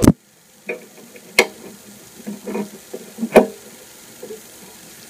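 Handling sounds: a loud knock right at the start, then two sharp clicks about two seconds apart, with faint scuffing in between.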